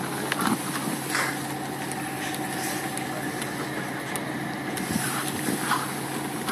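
An engine running steadily at idle with a constant hum, with a few faint knocks.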